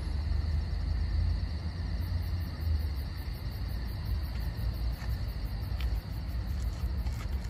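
Night ambience of insects: a steady high chirring, joined about two seconds in by a faster pulsing chirr, over a low rumble.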